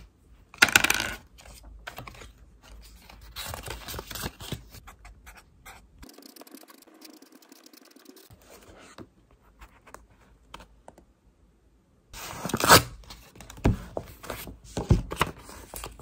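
Writing and paper-handling sounds at a desk: a marker pen's tip scratching on a card, paper being handled, and scattered light taps and clicks, with a louder rustle about a second in and several sharp taps near the end.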